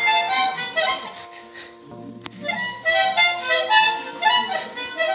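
A child blowing a harmonica: a quick string of short, shifting chords that thins out for a moment about a second in and picks up again more loudly near the middle. A single sharp click falls partway through.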